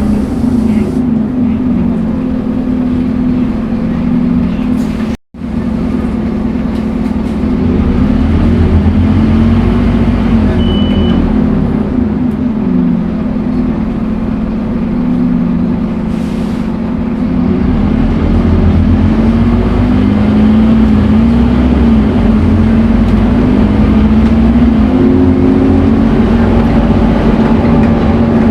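Scania N230UD Omnicity double-decker bus's diesel engine running under way, its pitch rising and falling repeatedly as the bus accelerates and eases off. The sound cuts out for a moment about five seconds in.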